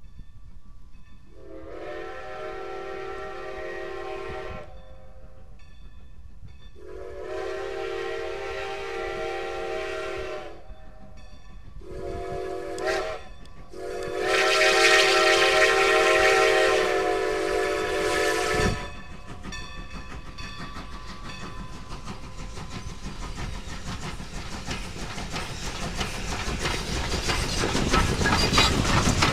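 Baldwin 2-10-0 steam locomotive's whistle blowing the grade-crossing signal: long, long, short, long, a chord of several steady tones, the last blast the loudest. Then the locomotive's running noise and rail clatter grow steadily louder as it closes in and passes.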